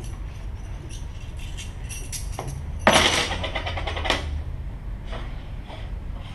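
Small objects handled on a performance table: scattered light clicks and scratches, with one loud dense rattle about three seconds in and a sharp click a second later, over a steady electrical hum.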